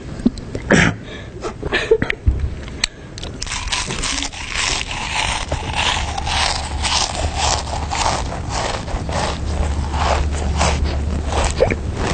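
Loud, close chewing and crunching of food: a few separate crunches at first, then a dense, continuous run of crunching from about three seconds in.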